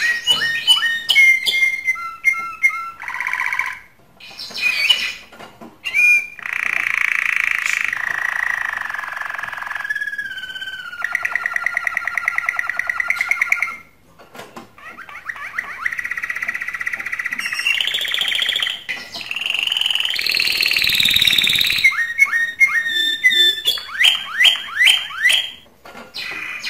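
Male domestic canary singing its full breeding song: strings of quick chips and sweeping notes, then long rapid rolls and trills held for several seconds at a time, with short pauses between phrases. It is a bird in full breeding condition, singing the song used to bring females into breeding.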